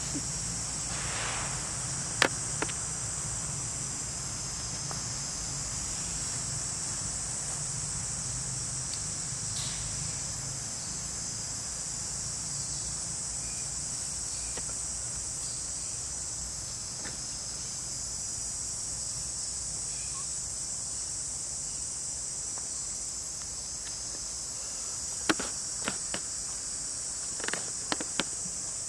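Steady high-pitched insect chorus droning throughout, with a few sharp clicks about two seconds in and again in a quick cluster near the end.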